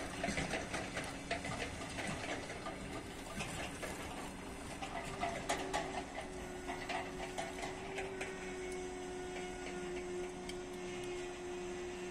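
ChME3 shunting diesel locomotive's engine droning steadily as its train of empty flat wagons rolls slowly past, with irregular clicking and clanking from the wagons' wheels and couplings on the rails.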